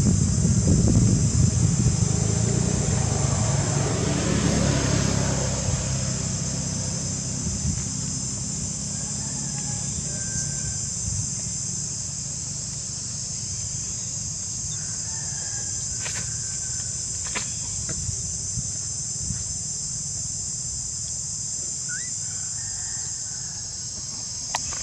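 Insects making a steady high-pitched drone throughout. A low rumble in the first few seconds fades by about six seconds in. A few faint short chirps and clicks come later.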